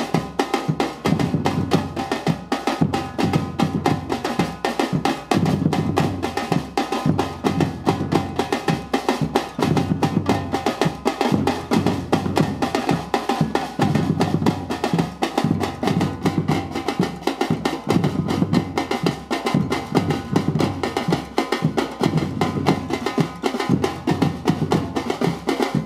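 A drum ensemble playing together: deep bass drums beat a repeating pattern under fast, dense snare strokes, in a steady, unbroken groove.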